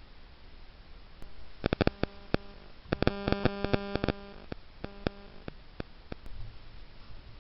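Electrical clicking and buzzing, as in a trail camera's recording: a few sharp clicks about two seconds in, then a dense run of clicks over a steady buzz for about a second, then scattered clicks that die away.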